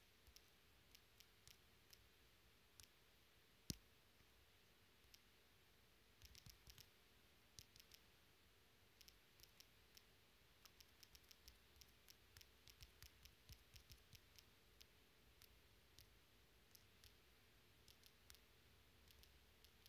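Faint, irregular clicks of typing on a smartphone's on-screen keyboard, coming in runs of quick taps with short pauses between, one louder click about four seconds in.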